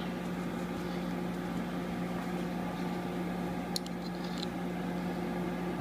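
Steady electrical hum with a constant low drone, and a few faint clicks about four seconds in as dial calipers are closed against a small metal part.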